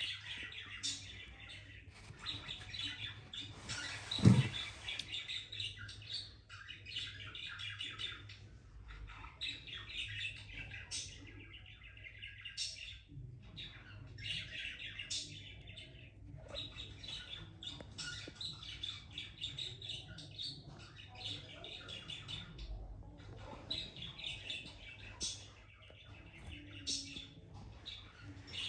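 Budgie chirping and chattering in runs of a few seconds with short pauses between. A loud bump about four seconds in.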